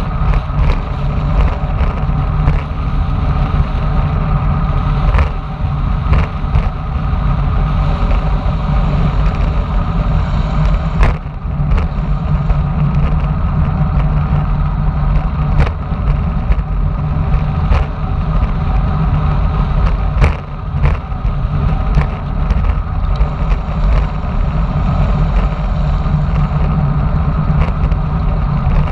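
Wind rushing over a bike-mounted camera's microphone, mixed with road-bike tyre rumble on the asphalt during a downhill descent. Occasional short knocks come from bumps in the road surface.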